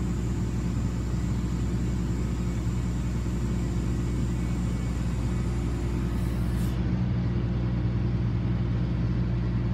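Bucket truck's diesel engine running steadily, a low, even drone with no change in speed.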